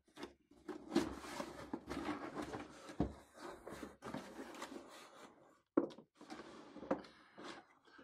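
Cardboard box being opened by hand: the lid and flaps scraping and rustling, with a sharp knock about three seconds in and another just before six seconds.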